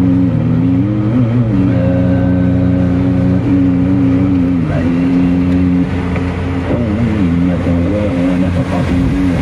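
Steady road and engine rumble inside a moving car. Over it, a man's voice chants in long held, wavering notes, as in Quran recitation.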